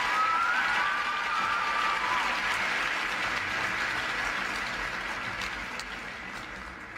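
Arena audience applauding, the clapping slowly fading away, with a wavering whistle from the crowd in the first two seconds.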